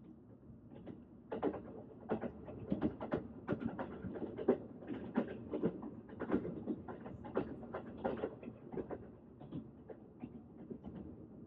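Train running on rails: a steady rumble with many irregular clicks and knocks from the wheels and the rattling carriage.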